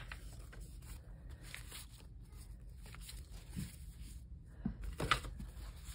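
Sticker sheets and paper being handled: faint rustling with a few light taps, the loudest about five seconds in, over a low room hum.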